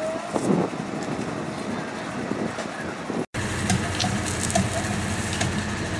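Outdoor background of children and adults. After a sudden cut about halfway, the steady low drone of an idling engine.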